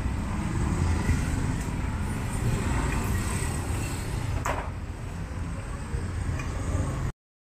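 Street traffic: motor scooters and tuk-tuk auto-rickshaws passing, a steady low engine rumble and road noise, with one short click about four and a half seconds in. The sound cuts off suddenly near the end.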